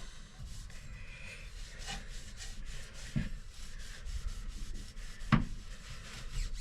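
A rag rubbed back and forth along a KYB motocross fork tube, wiping it clean in a string of short strokes. Two sharp knocks break in, about three seconds in and, louder, about five seconds in.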